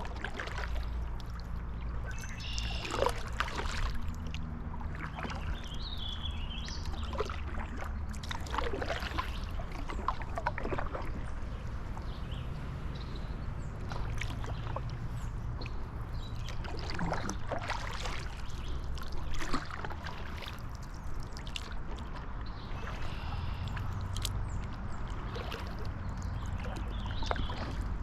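Kayak paddling on a lake: the paddle dips and splashes at irregular intervals, with water trickling off it, over a low steady rumble.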